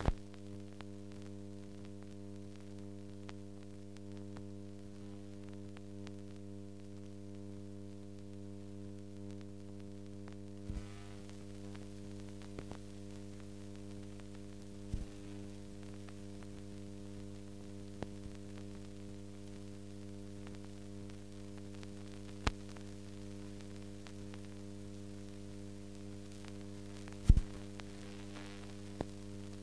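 Steady electrical mains hum on an otherwise silent soundtrack, broken by a few sharp clicks, the loudest near the end.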